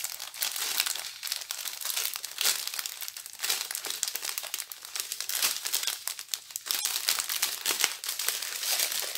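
Clear plastic bags of diamond-painting beads, joined in a strip, crinkling as they are handled and unrolled, with many small crackles throughout.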